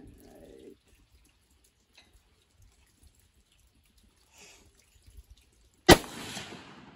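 A single shot from a Ruger Mini-14 Ranch rifle firing .223 Remington, one sharp report near the end, followed by about a second of ringing echo that fades away.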